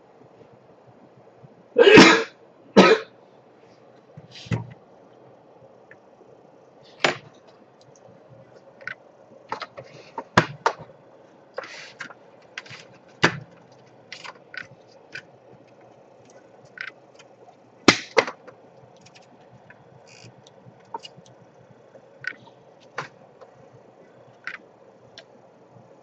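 Plastic laptop case being handled and turned over: scattered light clicks and knocks at irregular intervals. Two louder, short sounds come close together about two seconds in.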